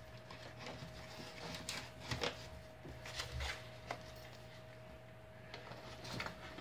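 Faint handling sounds of marshmallow slime being worked by hand: scattered soft clicks and brief rubbing against a cup or bowl, over a low steady hum.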